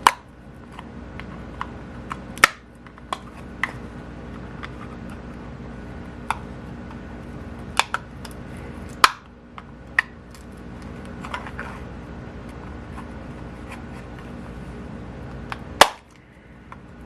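Screwdriver and hard plastic parts clicking and knocking at irregular intervals as a plastic projector housing is taken apart, with sharper knocks about 2.5, 9 and 16 seconds in. A steady low hum runs underneath.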